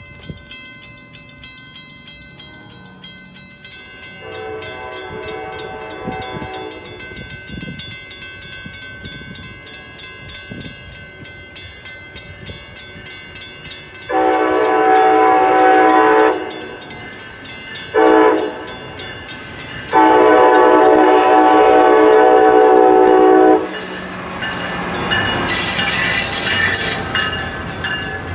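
Amtrak train horn sounding loudly as the train approaches: a long blast, a short one, then a longer one. The train then passes close by, its Amfleet coaches' wheels clattering over the rails.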